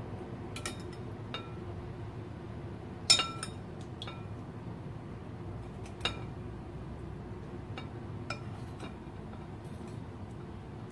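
Metal spoon clinking and scraping against ceramic bowls as beef stew and eggs are spooned onto a plate of rice. There are a dozen or so separate clinks, each with a short ring. The loudest come about three seconds in and again about six seconds in.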